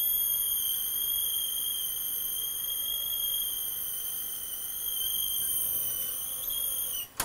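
Open-reel videotape recorder squealing as a Sony high-density tape with sticky-shed syndrome drags on the video head drum: the tape's hydrolysed back coating sticks to the drum. A steady high-pitched squeal that sags slightly in pitch and cuts off sharply near the end.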